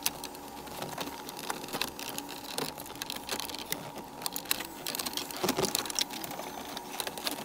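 Irregular small clicks and rattles of plastic wiring-harness connectors being worked loose and unplugged from the back of a factory car stereo, with the radio's metal case being handled. A longer scrape comes about five and a half seconds in.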